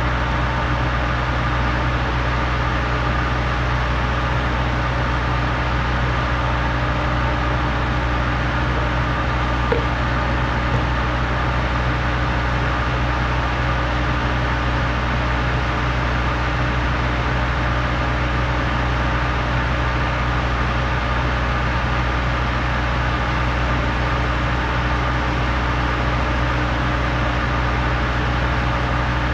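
Engines of a Putzmeister trailer concrete pump and the concrete mixer truck feeding its hopper, running steadily. A brief click sounds about ten seconds in.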